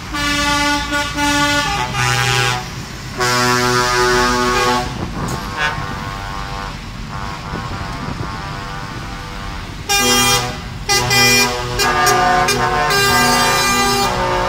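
Truck air horns sounding in repeated blasts, several tones at once, some in short notes that change pitch. Between the blasts, the low rumble of passing truck engines.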